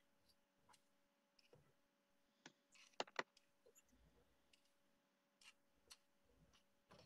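Near silence broken by scattered faint clicks and taps, with two sharper clicks close together about three seconds in.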